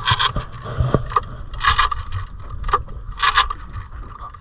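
Outboard motor's recoil starter cord pulled hard four times, each pull a short rasping whirr, with no running engine tone: the motor does not catch.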